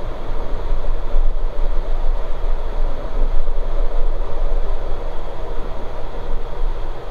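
Cockpit noise of an ATR72-600 rolling on a wet runway: its Pratt & Whitney PW127 turboprops and propellers running steadily over a low rumble, with a fluctuating noise level.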